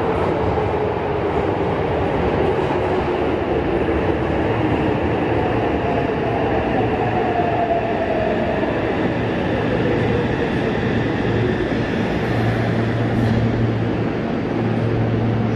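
Yokohama Municipal Subway 3000S-series train pulling into an underground station and braking: a steady rumble of wheels on rail with an inverter whine that falls in pitch as it slows. Near the end a steady low hum sets in as the train comes almost to a stop.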